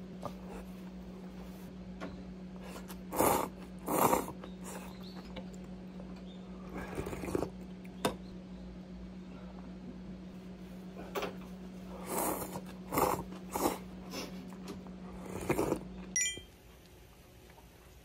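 Ramen noodles being slurped in a string of short, loud slurps over a steady low hum; the hum cuts off near the end.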